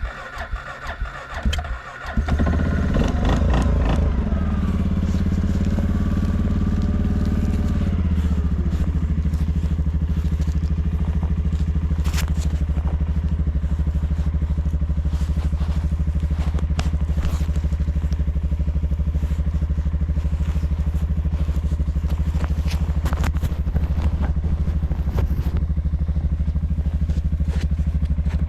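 Suzuki KingQuad ATV's single-cylinder engine being started: the starter cranks with a whine, the engine catches about two seconds in, its revs fall and settle by about eight seconds in, and it then idles steadily.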